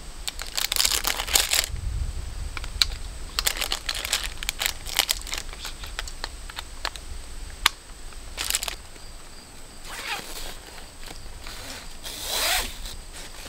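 Plastic clicks, rattles and rustling from a trail camera being handled and loaded, then strapped to a tree, with a longer scraping pull of the strap near the end.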